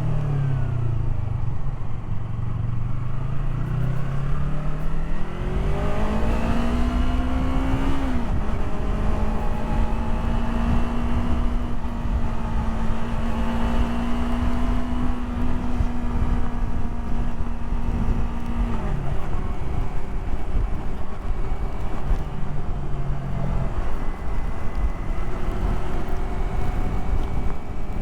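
Yamaha R3's parallel-twin engine under way with wind rushing over the microphone. Engine speed falls at first, climbs again over a few seconds, holds a steady cruise for about ten seconds, drops off, and picks up once more near the end.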